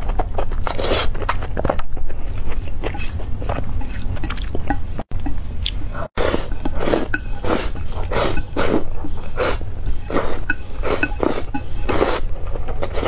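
Close-miked eating sounds: chewing with many irregular mouth clicks and crackles, over a low steady hum. The sound cuts out briefly twice, about five and six seconds in.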